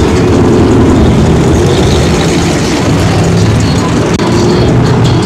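A car engine running nearby with a loud, steady, deep rumble.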